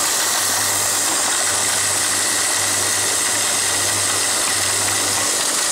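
Electric feed mill running, its spinning rotor smashing dry feed into a fine powder: a loud, steady grinding hiss over a low hum.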